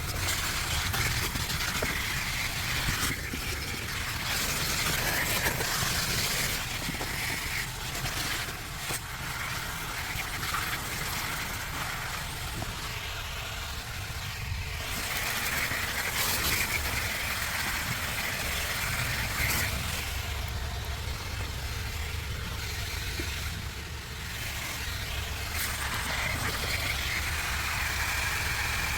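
Vacuum cleaner running continuously while cleaning car carpet, its sound wavering in loudness as the nozzle is worked back and forth.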